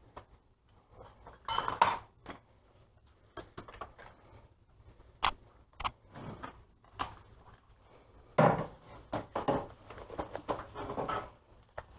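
Metal hand tools and parts being handled, clinking and clanking at irregular intervals, about a dozen separate knocks with the loudest clusters near the start, in the middle and near the end.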